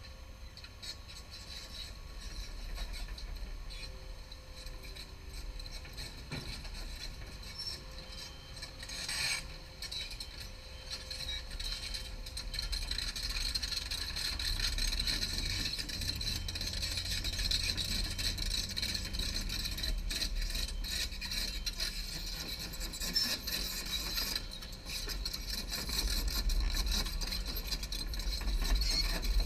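Hyundai Robex 220LC-9A tracked excavator travelling on its steel crawler tracks, the track links scraping and rattling over the engine's running, growing steadily louder as the machine approaches.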